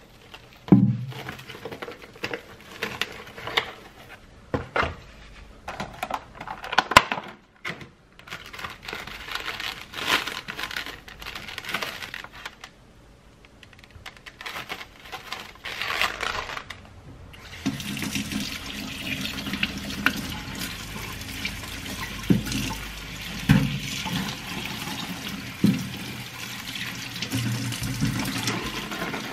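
Whole mushrooms dropped with dull knocks into a stainless steel sink, and a plastic bag crinkling. About two-thirds of the way in, the kitchen tap comes on and runs steadily into the sink as the mushrooms are rinsed in a metal strainer, with a few more knocks.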